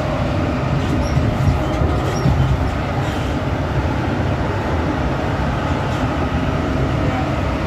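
Interior running noise of a modernized EN57 electric multiple unit's motor car under way: a steady low rumble from the wheels and running gear, with a faint high tone held over it.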